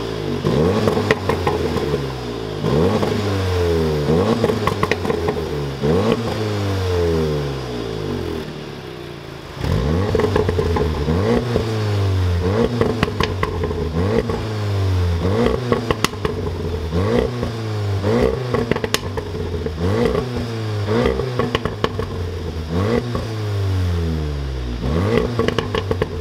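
VW Golf R Mk7.5 with its exhaust resonator removed, its 2.0-litre turbocharged four-cylinder blipped repeatedly at a standstill, one rev every couple of seconds. The first run is in normal mode with the exhaust valves closed. About ten seconds in it switches to race mode with the valves open: the exhaust gets clearly louder, with sharp pops and crackles on each lift-off.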